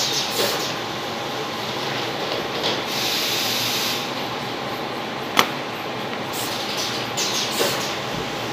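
Steady running noise of a roller paper-gluing machine and electric fans. Over it, grey-board box cases slide and rustle as they are handled, with a longer scraping rustle about three seconds in and a single sharp click about five seconds in.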